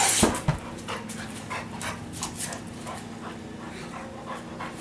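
A dog panting in quick, short breaths while the dogs play-wrestle, with a couple of thumps and scuffling in the first half-second.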